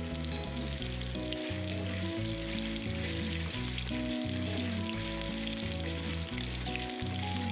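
Batter-coated soya chunks deep-frying in hot oil in a kadai: a steady, dense crackling sizzle while a spatula stirs them. Background music with sustained low notes plays underneath.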